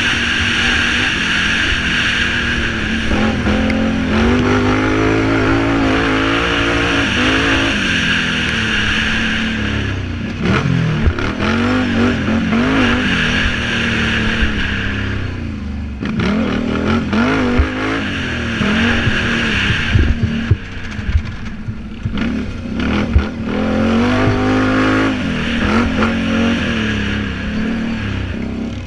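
Can-Am Renegade 800R quad's V-twin engine revving hard under racing load, its pitch repeatedly climbing and dropping with throttle and gear changes. Short knocks and clatters from the rough dirt track come through in the middle and near the end.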